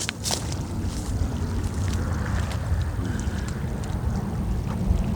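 Wind rumbling on a phone's microphone, a steady low buffeting over the faint wash of water, with a few sharp clicks in the first half second.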